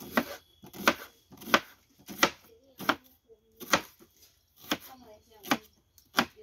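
Knife chopping an onion against a plastic cutting board: about nine sharp cuts, one roughly every two-thirds of a second.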